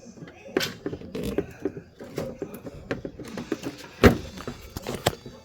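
Scattered clicks and knocks from hands working on a homemade fire alarm control panel while unscrewing a wire connection, with one sharper knock about four seconds in.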